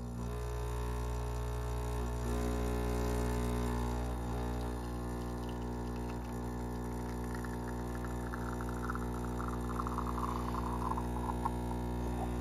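Gaggia Classic Pro's vibratory pump humming steadily while pulling an espresso shot. From about halfway through, the coffee stream trickles and crackles into the glass.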